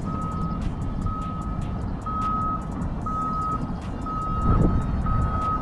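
Electronic beeper sounding one steady high tone, about half a second on and half a second off, one beep a second, over a steady low rumble.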